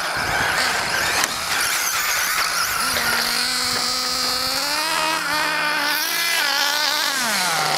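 Radio-controlled car's motor whining as it is driven over the dirt track. The pitch holds steady, rises about two-thirds of the way in, and drops near the end as the throttle comes off.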